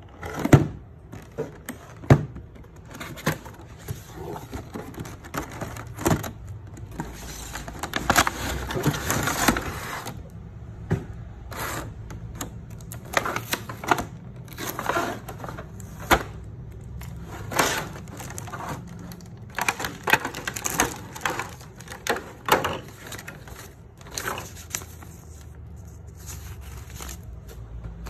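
Clear plastic blister packaging and a plastic bag being handled around a toy RC car: irregular crinkling and crackling with sharp taps and clicks, densest about eight to ten seconds in.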